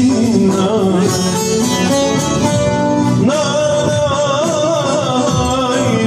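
Turkish folk song performed live: a man sings a wavering melody over plucked long-necked lute (saz) accompaniment, holding a long note from a little past the middle.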